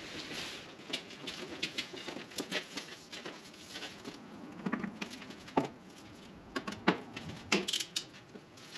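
A ratchet strap being handled and fastened: irregular light clicks and rattles of its metal ratchet and hooks, with a few sharper clicks in the second half.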